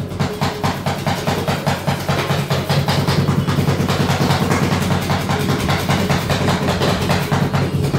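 Two metal spatulas rapidly chopping and scraping rolled-ice-cream mix on a frozen steel cold plate. The strikes come as a fast, even clatter of several a second, over a steady low hum.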